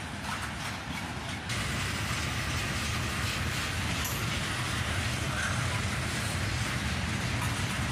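Freight train cars rolling past on the rails: a steady rumble of wheels and car bodies. It steps up in loudness about a second and a half in.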